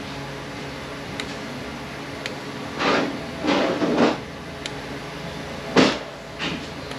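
Hand work on a 9T65 automatic transmission during teardown: a few light clicks, then several short scraping or whirring bursts, each about half a second, over a steady low hum.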